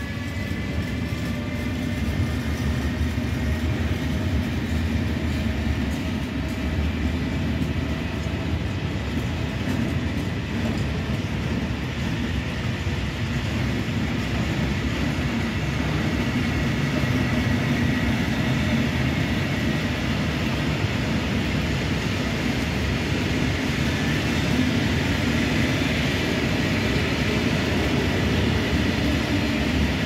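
Long freight train of Eas open goods wagons rolling past at a steady speed, a continuous rumble of wheels on rail. In the first couple of seconds a few faint tones slide down in pitch and fade as the Vectron electric locomotive moves away.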